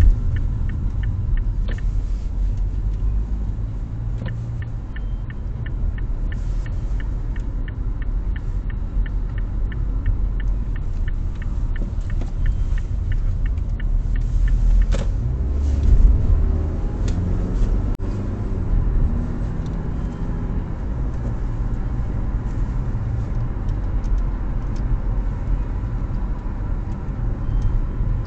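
Steady low rumble of the car's engine and tyres inside the cabin. Evenly spaced ticking, typical of a turn-signal indicator, runs for about the first half and stops. Around the middle there is a brief thump, then the engine note climbs as the car speeds up.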